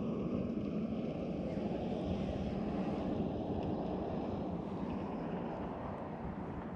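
Steady wind rumble buffeting the camera microphone over open water.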